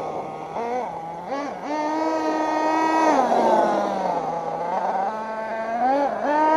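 Dragon STS .28 nitro engine of an RC monster truck revving up and down as it is driven: quick throttle blips about a second in, held high revs for a second and a half, then a drop back toward idle and a rise again near the end. The owner says it runs a bit lean on the low end.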